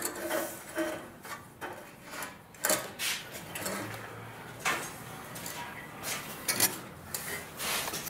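Steel wire cable clinking and scraping against the metal brackets of a catalytic converter cage as it is threaded through them: irregular metallic clicks and rattles.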